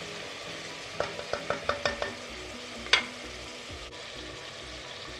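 Mutton and masala frying on a high flame in a pressure cooker pot, a steady sizzle, while a spatula stirs it. About a second in comes a quick run of about six ringing knocks against the pot, then one sharper clank near three seconds.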